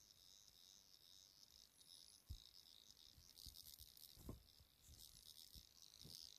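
Faint, steady high-pitched chirring, with a few soft knocks spread through the middle.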